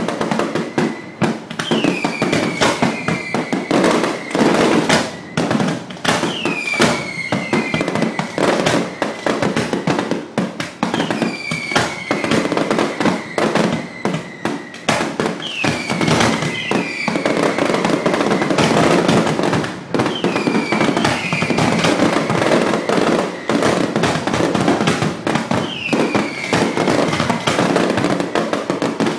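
Ground-level fireworks going off continuously, with a dense crackle of firecrackers and frequent bangs. A whistle that falls in pitch and then holds recurs every four or five seconds.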